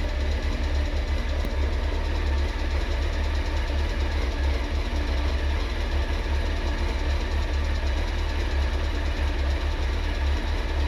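Honda CBR900RR Fireblade's inline-four engine idling steadily, with a slight tappy top end and a clutch noise that the owners put down to the clutch bearing and don't think worth worrying about.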